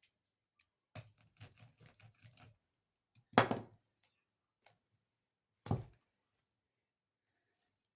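Hands handling packaging. A run of quick light clicks starts about a second in. A louder knock with a rustle comes around three and a half seconds, and another knock near six seconds.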